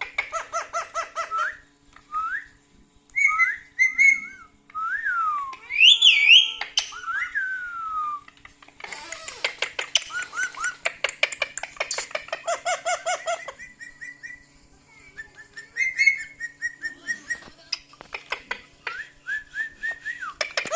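Talking parrot whistling short rising and falling glides, broken up three times by bursts of rapid repeated pulsed calls that sound like laughter.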